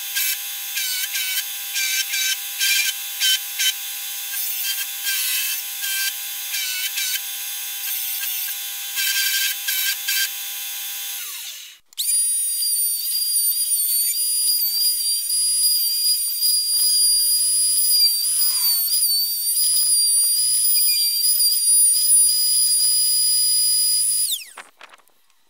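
Belt grinder running while a wooden hatchet handle is sanded on it: a steady motor tone with high sanding hiss, its pitch dipping again and again as the wood is pressed to the belt. From about halfway, a router in a router table runs with a high steady whine that wobbles slightly under load, then spins down near the end.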